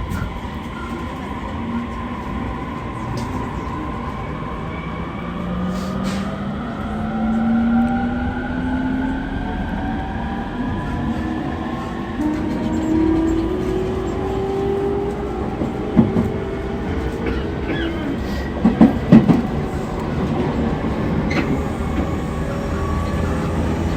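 E231-1000 series electric train running, its traction motor and inverter whine rising steadily in pitch as it accelerates, over wheel and rail rumble. Sharp knocks come at about 16 seconds and in a quick cluster around 19 seconds. The car is recorded for an abnormal noise (異音).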